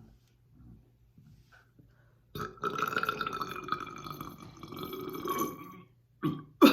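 A long, drawn-out burp from gulped carbonated soda, starting a couple of seconds in and lasting about three and a half seconds, followed near the end by a brief, louder sound.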